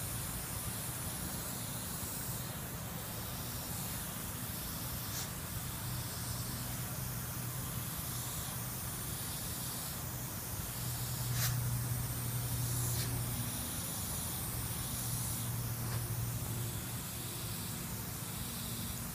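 Airbrush spraying paint, a hiss that swells and fades every second or two as the trigger is worked, over a steady low hum. A sharp click comes about halfway through.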